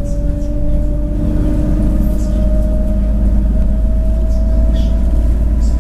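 City bus running, heard from inside: a deep, steady rumble with a whine that rises slowly in pitch as the bus gathers speed.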